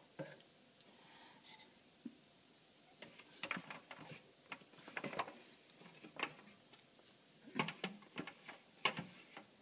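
Faint, scattered clicks, knocks and scrapes of a food processor's blade and bowl being handled as pastry dough is taken out. They are sparse at first and come several a second from about three seconds in.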